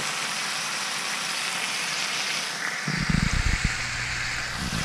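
T-bone steak sizzling in melting butter in a nonstick skillet, a steady frying hiss. A few dull bumps break in about three seconds in.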